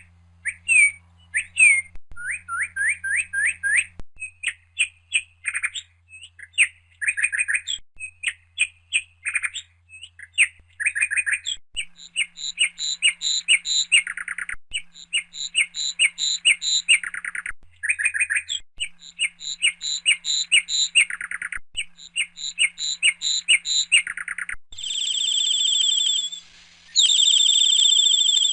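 Bird chirping in rapid runs of short, sharp high notes, several a second, with brief pauses between runs. About four seconds from the end the chirps give way to a steady high whistled tone, broken once by a short gap.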